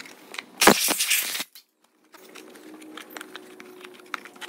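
A short, loud hiss lasting under a second, about half a second in, as a plastic hybrid-battery cooling duct is cleaned. After it come faint scattered clicks and rubbing as the duct is handled and wiped with a rag.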